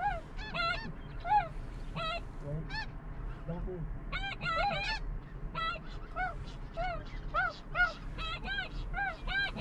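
A flock of snow geese calling, many short, high, arched honks overlapping at several calls a second, with a thinner spell a few seconds in.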